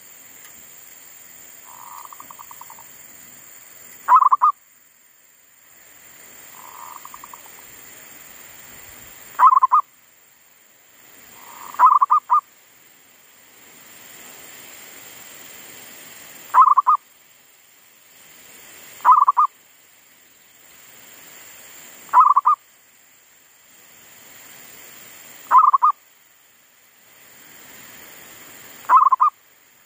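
Caged zebra dove (perkutut) lure bird singing: a short burst of quick cooing notes, repeated eight times a few seconds apart, with two softer, fainter trills in the first seven seconds.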